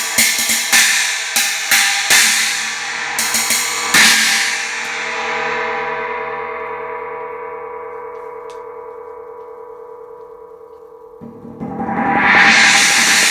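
Dream 16-inch China cymbal struck repeatedly with a stick for about four seconds, then hit hard and left to ring, dying away slowly over several seconds. Near the end the cymbal swells back up loudly.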